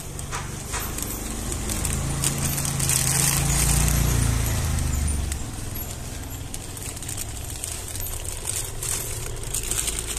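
Clear plastic toy bags crinkling and crackling as they are handled. In the middle a low engine hum swells and fades, like a vehicle passing.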